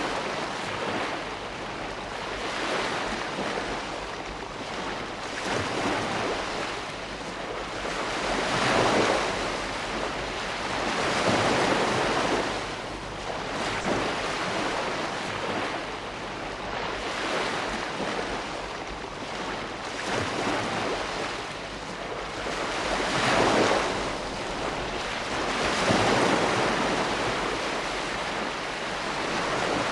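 Ocean waves breaking on a shore: a steady hiss of surf that swells and ebbs every few seconds, with bigger breakers partway through and near the end.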